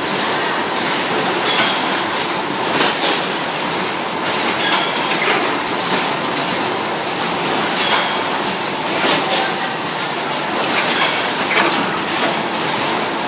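Stick ice cream production machine running: its conveyor of bar holders clatters steadily with many metal clicks, and a short high squeak comes about every three seconds.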